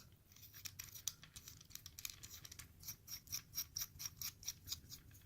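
Light metal clicking as the end cap is put back on a pen-style lockpick tool, turning into an even run of about four clicks a second over the last two seconds.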